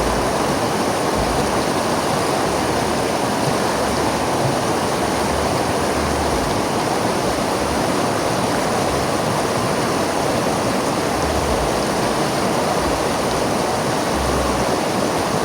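River water flowing and rushing over rocks, a steady even rush.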